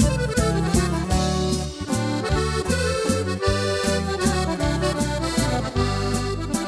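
Norteño band playing an instrumental passage: accordion lead over a bass line and a steady beat, with no singing.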